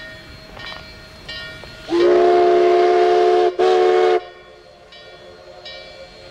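Durango & Silverton narrow-gauge steam locomotive's whistle blowing two blasts, a long one and then a short one. Several notes sound at once, as a chime whistle.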